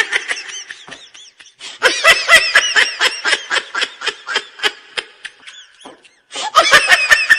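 High-pitched laughter in quick, rhythmic bursts, in three bouts separated by short pauses, the middle one the longest.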